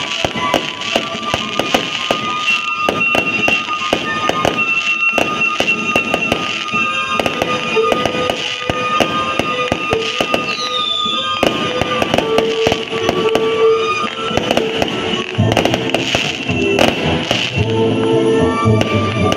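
Aerial fireworks going off in quick succession, a dense run of bangs and crackles, with music playing throughout.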